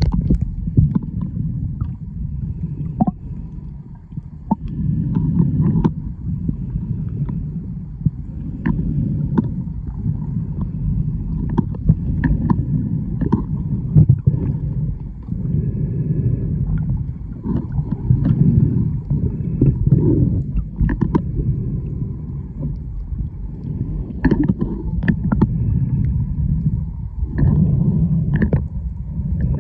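Underwater sound picked up by a submerged camera: a low rushing rumble of moving water that swells and fades every few seconds. Scattered sharp clicks and a faint thin whine run through it.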